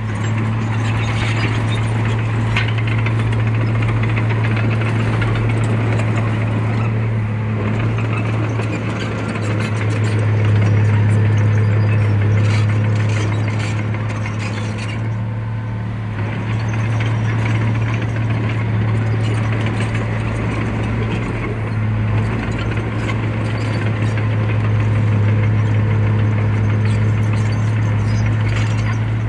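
The diesel engine of heavy earthmoving machinery running steadily at a low drone, swelling and easing a few times, with metallic clatter and rattling over it.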